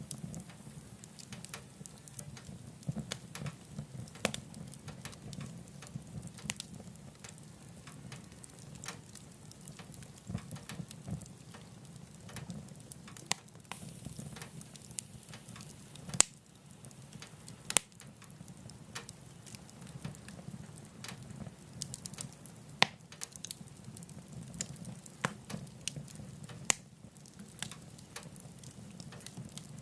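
Wood fire burning in a wood stove: a steady low rumble of flame with irregular crackles and pops of the burning logs, a few sharper pops standing out.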